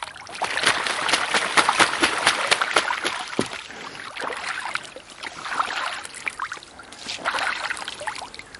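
Geese bathing in shallow water, splashing and dipping. The splashing is heaviest and densest in the first three seconds, then comes in lighter bursts twice more.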